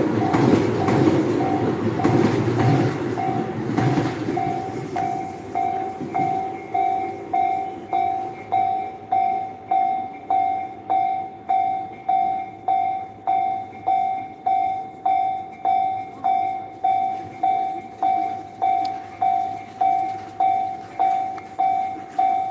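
A train runs over a level crossing and fades away within about five seconds. The crossing's electronic warning bell rings steadily throughout, about one and a half strikes a second.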